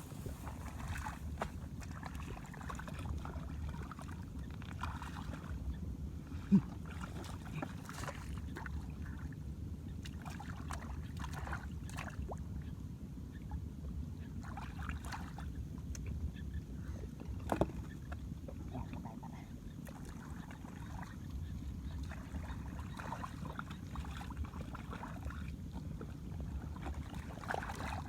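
Shallow water splashing and sloshing in short, irregular bursts, as from hands and feet working through a flooded field, over a steady low rumble of wind on the microphone. Two sharp clicks stand out, one about six seconds in and one about seventeen seconds in.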